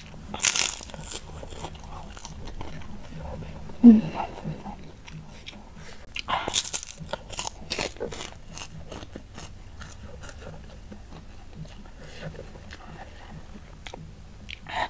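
Close-miked sounds of someone eating fried chicken and rice by hand: chewing with wet mouth clicks and smacks, and a few louder bites about half a second, four seconds and six and a half seconds in.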